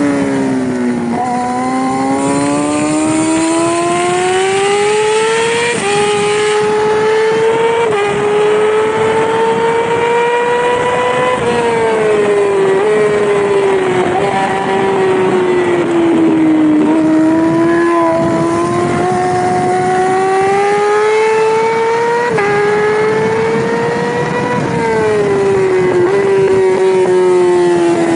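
Yamaha R6 600cc inline-four race bike engine at racing speed, climbing in pitch as it accelerates and falling away under braking, with small steps in pitch at the gear changes.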